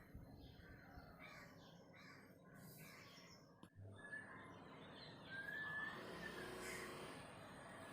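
Near silence with faint bird calls in the background.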